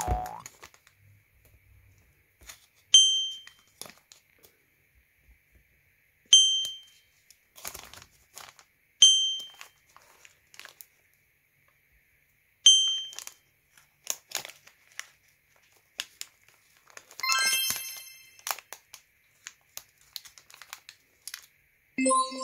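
Thin plastic blister tray and wrapper crinkling and clicking as they are handled. Four identical short, bright dings ring out about three seconds apart and are the loudest sounds; a longer, many-toned chime sounds around two-thirds of the way in, and another starts near the end.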